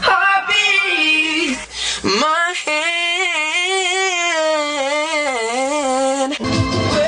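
A boy's solo singing voice, nearly unaccompanied, running a long drawn-out phrase with a wavering vibrato that rises and then falls for about four seconds. A full pop backing track cuts back in near the end.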